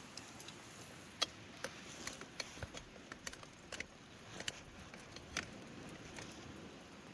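A scattering of sharp, irregular clicks and light knocks, about a dozen in four seconds, the loudest about a second in, over a faint steady background.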